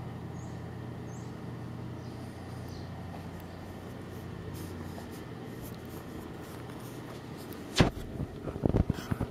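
A steady low mechanical hum, then a sharp knock near the end followed by a quick cluster of thumps.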